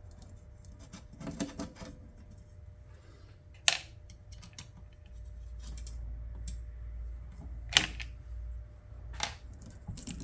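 Tools and parts being handled on a workbench: scattered light knocks and handling noise, with three sharp clicks in the second half and a faint low rumble in the middle.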